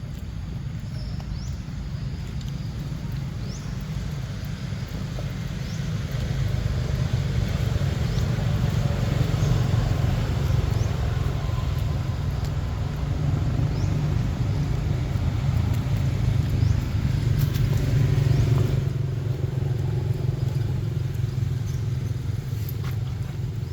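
A steady low rumble with an even hiss over it, swelling for a while and then easing again near the end.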